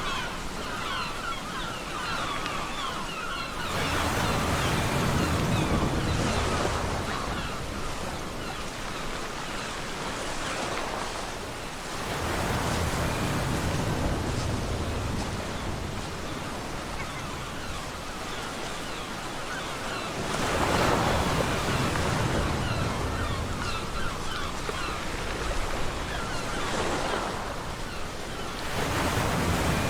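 Ocean waves breaking on a beach, a new wave surging in about every eight seconds and washing back in between.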